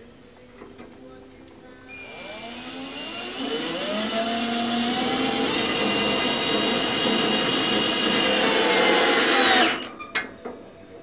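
12-volt cordless drill driving a screw into the underside of a desk. The motor whirs up about two seconds in, its pitch climbing as it gets going, then runs steadily until it stops suddenly near the end, followed by a couple of sharp clicks.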